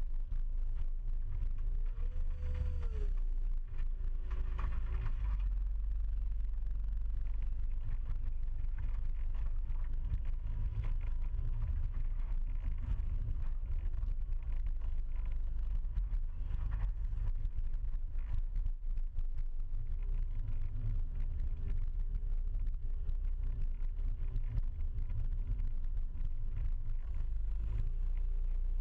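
Bobcat T300 compact track loader's diesel engine running steadily under load, with a hydraulic whine that rises and falls about two seconds in and wavers again later. Frequent rattles and knocks run through it as the loader and its grapple work the debris.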